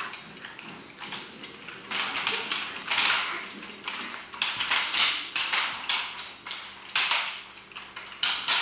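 Irregular clatter and knocking of a toddler's plastic roller skates on the floor as the child struggles to get up on them.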